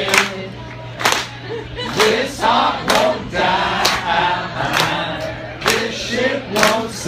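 Many voices singing together over a sharp, steady beat about once a second, with a low hum underneath.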